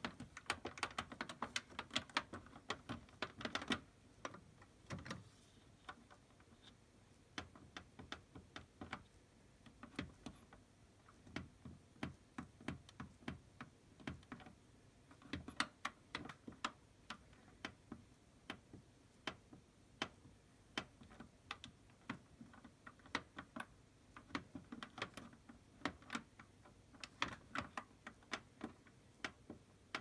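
Push buttons on a Beko WM74165W washing machine's control panel clicking, pressed one after another as the temperature, spin and option settings are stepped through. The clicks come irregularly, in quick runs near the start and near the end and as single presses in between.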